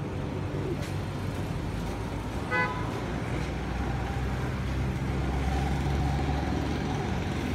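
Steady low mechanical hum at a petrol pump while fuel is dispensed into a car. A short vehicle horn toot sounds once about two and a half seconds in.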